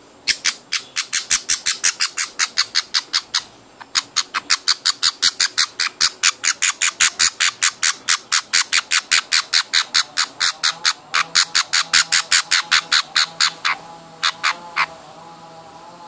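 Baby budgerigar chick's food-begging calls during hand-feeding: loud, short cheeps repeated about four or five a second, with a brief pause about four seconds in, ending with a few last calls near the end.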